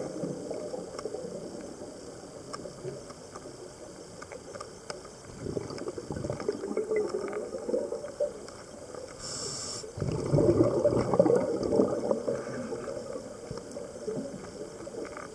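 Scuba diver breathing through a regulator underwater: two long bubbling exhalations, the first about five seconds in and the second about ten seconds in, with a short hiss of inhalation between them.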